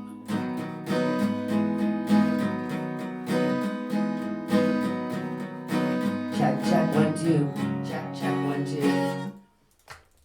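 Acoustic guitar strumming chords in a steady rhythm. It stops about nine seconds in, and a couple of faint knocks follow.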